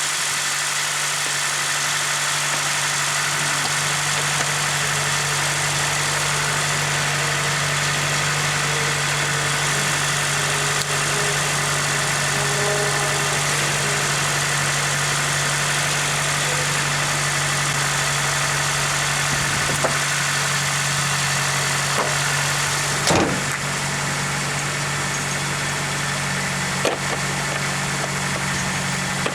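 Toyota Celica GT-S's 2ZZ-GE four-cylinder engine idling steadily with a newly fitted alternator, with a few light clicks in the last third.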